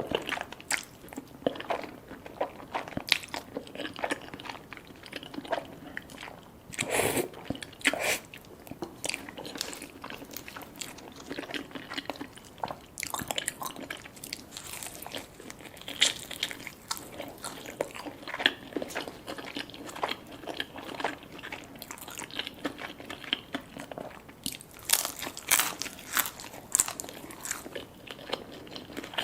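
Close-up eating from a meal of black bean noodles, fried sweet and sour pork and pork dumplings: repeated crunchy bites and chewing, with a longer, louder sound about seven seconds in.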